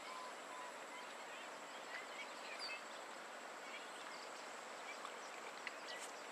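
Heavy rain falling in the distance, a faint, steady hiss as the downpour approaches, with a few bird chirps over it and a few light clicks near the end.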